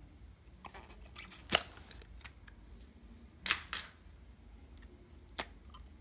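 Fingers handling a soft, liquid-filled squishy stress ball, making a few short, sharp sticky clicks and crackles. The loudest comes about one and a half seconds in, and there is a pair near the middle.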